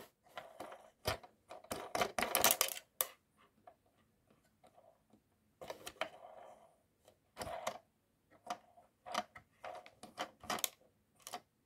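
Irregular small clicks, taps and rubbing from fingers handling a Siku toy fire-brigade work boat while fitting its hose nozzle and reel, with short quiet gaps between.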